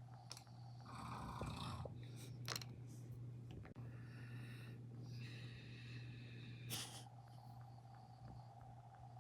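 Faint snoring: a few slow, rasping breaths about a second long each, with a few sharp clicks between them, over a steady low hum.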